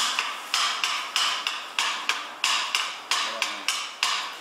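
Sharp metal-on-metal hammer knocks at a steady pace of about two a second, each with a short high ring, struck on the drive shaft and cam assembly of a single punch tablet press during disassembly.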